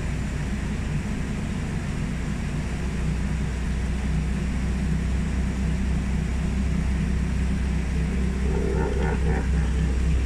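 Night Safari tram moving along its route, heard from on board: a steady low hum and rumble of the vehicle in motion.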